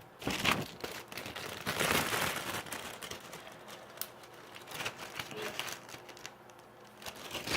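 Irregular crinkling and rustling handling noise with scattered clicks, as slime and its plastic containers are handled and moved about.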